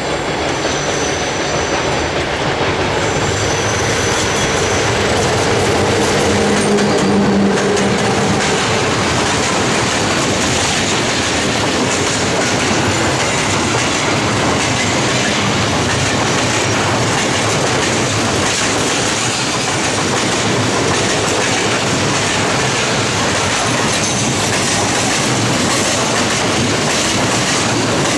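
A freight train of loaded open wagons, hauled by a Romanian class 40 electric locomotive, passes close by with a steady, loud rolling rumble of steel wheels on the rails. A hum runs through the first eight seconds or so as the locomotive goes by.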